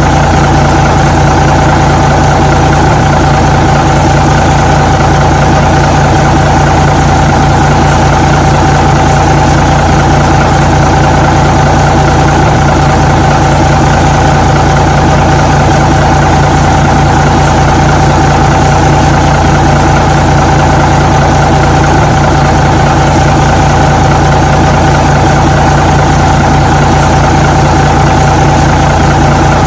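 Truck engine idling steadily, a loud, unchanging hum with no revving.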